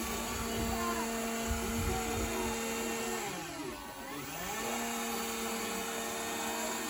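Power saw motor running with a steady whine. About three seconds in its pitch sags and then climbs back within about a second and a half, the saw bogging under load as it cuts through a slab and then spinning back up.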